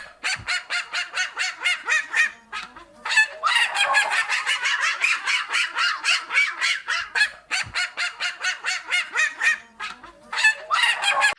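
Domestic waterfowl calling in fast runs of about six calls a second, broken by short pauses a few times.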